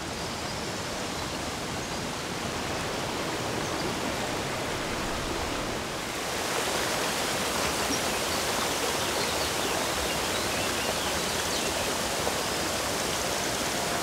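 Waterfall and rocky stream rushing: a steady, even rush of falling and tumbling water that grows louder and brighter about six seconds in.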